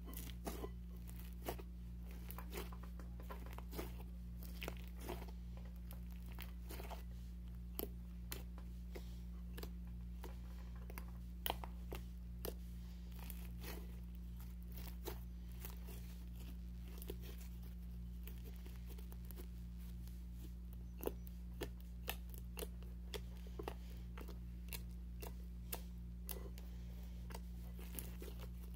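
Thick white slime being squeezed and kneaded by hand in a glass bowl, giving irregular small sticky clicks and crackles, several a second, over a steady low hum.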